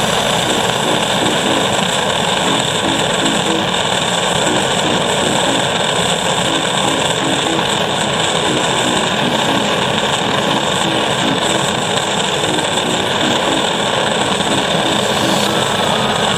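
Background music: a simple stepping melody over a dense, steady wash of sound.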